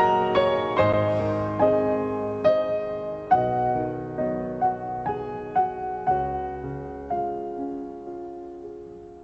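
Background music: a piano plays a slow melody of single struck notes, fading out gradually toward the end.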